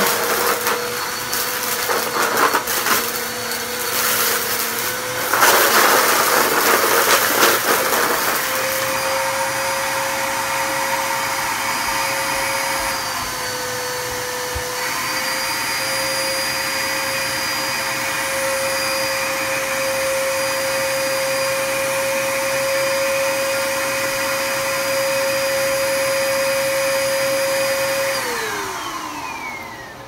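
Upright bagless vacuum cleaner running on a rug, with a steady motor whine. Debris rattles and crackles up through it for the first several seconds, and near the end the motor winds down as it is switched off.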